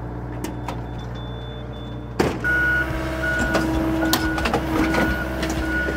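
Heavy diesel machinery running steadily, with a sharp knock about two seconds in, after which a backup alarm starts beeping at a little more than one beep a second over the engine.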